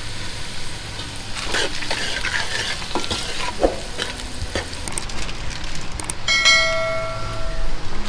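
Spices frying in mustard oil in a steel pot on a gas stove, with a spoon stirring and scraping against the pot. Near the end a steady pitched tone sounds for about a second and a half.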